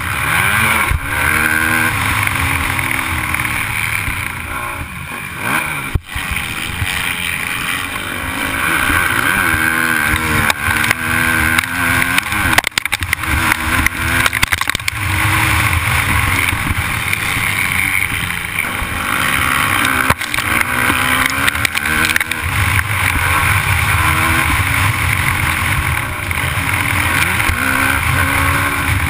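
Motocross bike engine ridden hard, its pitch climbing and dropping again and again as the throttle is worked through the gears, under steady wind rush. There is a sharp knock about six seconds in.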